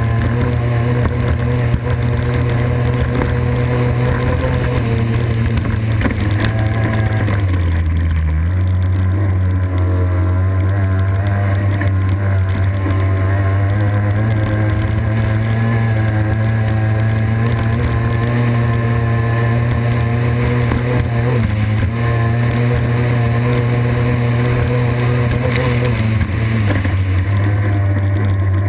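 Racing boat's engine running hard at high revs, a loud steady note whose pitch dips briefly about seven seconds in and twice more later on, over a steady rush of water and wind.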